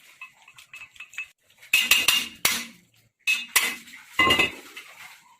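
Metal tools and parts clinking and clanking as they are handled. Light clicks come first, then from about two seconds in several louder clanks with a brief metallic ring.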